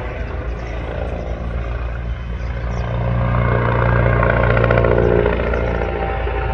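Helicopter flying overhead: steady rotor and engine drone that swells louder about halfway through, then eases a little near the end.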